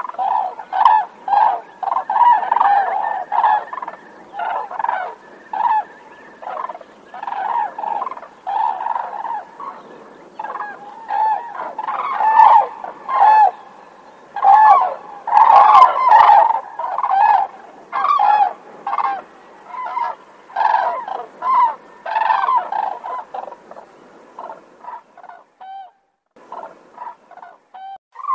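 Cranes calling: a dense, overlapping series of short, harsh, pitched calls, roughly two or more a second, that grow sparser and fainter near the end.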